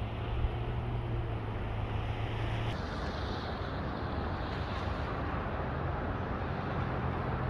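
Straight-piped 4.0 L straight-six of a 1999 Jeep Cherokee XJ heard from a distance as the Jeep approaches, with no muffler. Its low exhaust drone grows slowly louder over a steady hiss of tyres on wet pavement.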